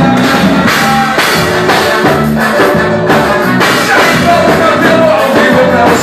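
Live band playing loud amplified music, with electric guitar over a regular drum beat.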